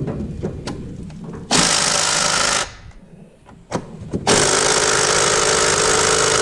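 A power tool runs in two bursts, about a second and then about two and a half seconds, driving a nut or bolt on the engine's alternator and accessory bracket, with a few sharp clicks between the bursts.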